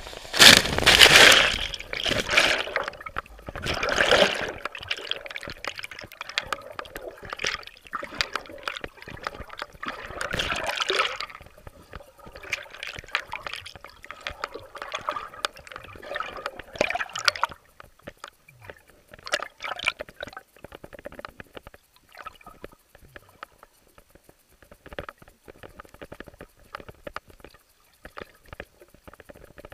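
A loud splash about half a second in as the rider and head-mounted camera plunge into the lake off a Kawasaki X2 stand-up jet ski. Then underwater gurgling and bubbling, with more surges of sloshing near four and ten seconds. After about seventeen seconds these thin out to scattered bubble pops and crackles.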